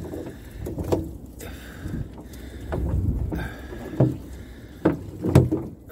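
Wind buffeting the microphone on a small open boat, with several sharp knocks as a trammel net is hauled in hand over hand over the gunwale.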